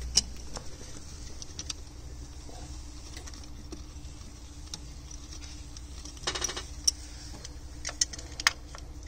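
Clicks and taps of hands working a rubber fuel hose and its metal hose clamp onto a fuel filter, with a brief rattle a little after six seconds in.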